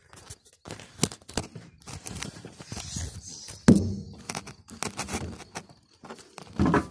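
Irregular knocks, scrapes and shuffling footsteps on the old truck's metal body as someone climbs onto the cab, mixed with the rub of the phone being handled. One heavy knock about halfway through is the loudest, and another stretch of louder scraping comes near the end.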